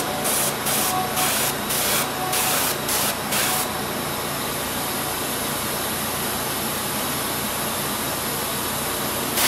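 Airbrush spraying paint onto a small plastic model part. It hisses in short bursts, about two or three a second, for the first few seconds, then sprays in one steady, unbroken hiss.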